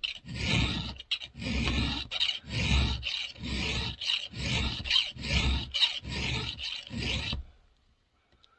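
Thin eighth-inch round file rasping through a saw chain's steel cutter by hand: about nine even strokes, a little over one a second, stopping about seven seconds in. The strokes are sharpening the cutter to a 'baby C' hook profile.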